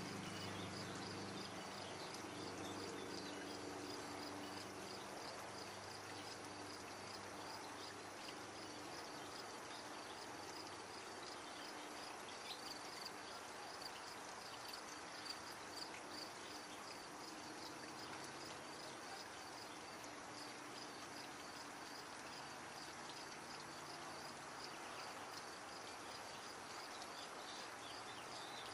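An insect chirping faintly in a steady rhythm of about two high-pitched chirps a second over a steady outdoor hiss, with a low hum in the first few seconds that fades away.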